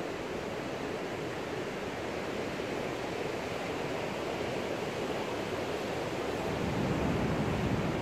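Steady rush of ocean surf, swelling louder about seven seconds in.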